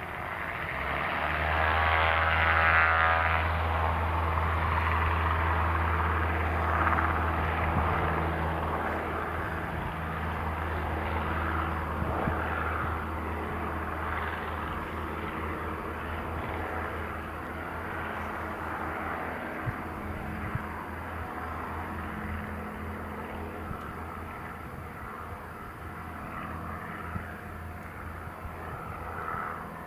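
Socata TB-9 Tampico's four-cylinder piston engine and propeller at takeoff power. The sound swells to a peak about two to three seconds in as the plane passes, then drones steadily and slowly fades as it climbs away.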